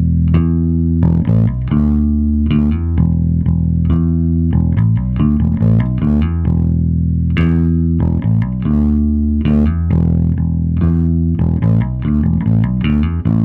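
Warwick Rockbass Corvette passive four-string bass guitar played fingerstyle through a Gallien-Krueger Backline 600 head and a Carvin 4x10 cabinet: a continuous riff of plucked low notes. It is picked up by a camera microphone, which gives it a farty low end.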